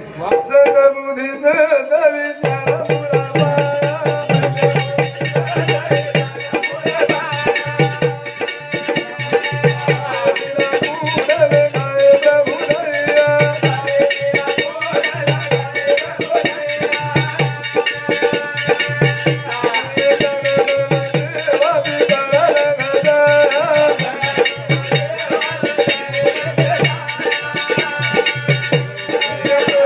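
Banjara devotional bhajan music: a hand drum beats a steady repeating rhythm under a sustained melody, the drum coming in about two seconds in.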